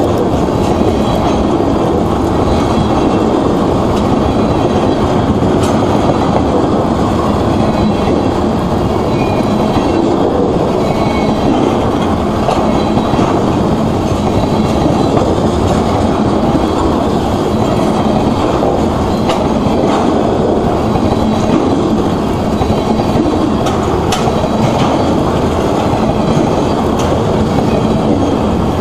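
Freight train tank cars rolling past close by: a steady, loud rumble of steel wheels on rail, with the click of wheels over rail joints now and then.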